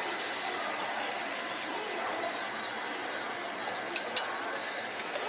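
Egg-and-vegetable batter sizzling steadily in metal molds on a hot flat-top griddle, with two light clicks about four seconds in.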